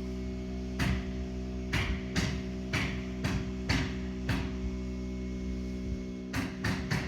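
Background guitar music: held notes under a run of plucked strokes, with a pause in the plucking shortly past the middle.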